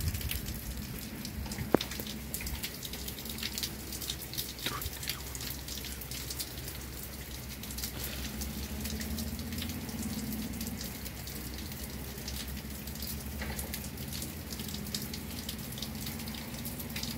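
Water dripping and scattered raindrops tapping as a violent downpour tails off: irregular sharp ticks, one louder tap about two seconds in, over a faint steady low hum.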